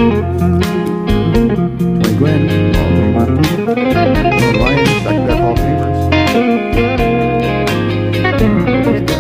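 Background music with electric guitar, bass and a steady beat, in a bluesy style.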